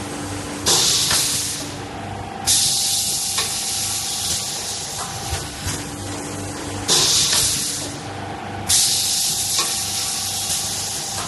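Small automatic paper plate forming machine cycling, its pneumatic cylinders letting out sharp bursts of air hiss that start suddenly, two to a cycle, about every six seconds, over a steady hum.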